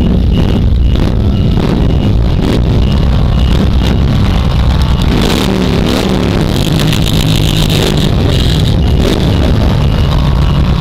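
Motorcycle engines running in a crowd of bikes: a steady, loud low rumble.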